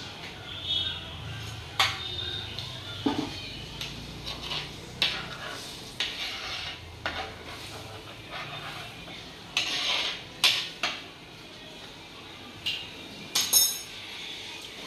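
Metal spoon stirring curry in an earthenware clay pot: irregular clinks, scrapes and knocks against the pot every second or so, with a few sharper clinks near the end.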